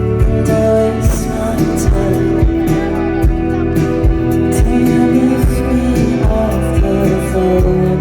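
Live band playing a slow dream-pop song: sustained guitar and bass chords over a steady drum beat.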